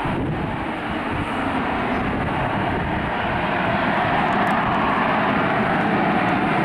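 F-35B Lightning II's F135 jet engine running, a loud, steady rush of jet noise that grows a little louder about three and a half seconds in.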